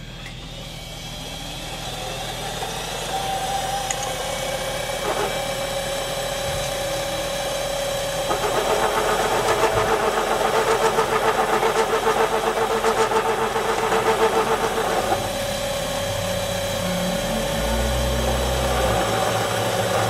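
Small benchtop metal lathe running, its chuck spinning up and the level rising over the first couple of seconds. From about eight to fifteen seconds it grows louder with an even pulsing, and a low hum comes in near the end.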